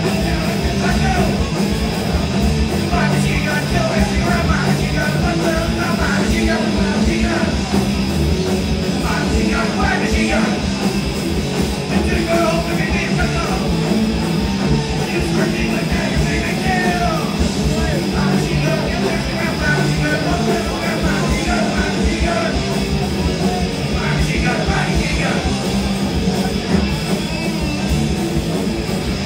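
Hardcore punk band playing loud and steadily live: distorted electric guitar, bass guitar and drums, with a shouting singer.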